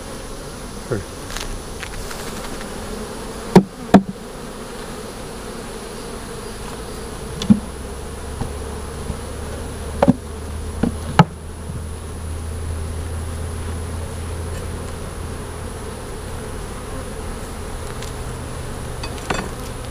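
Honeybees buzzing steadily around an open hive, with a handful of sharp wooden knocks and clicks as frames and a metal hive tool bump against the wooden hive boxes.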